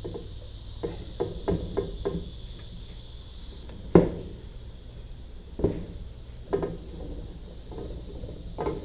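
The crankshaft of a 3.0 L Mercruiser (GM 181) four-cylinder is being worked loose and lifted out of the bare engine block by hand, with metal knocks and clunks. There is a quick run of light knocks about a second in, one sharp loud clunk about four seconds in, and a few more clunks after it, over a steady low hum.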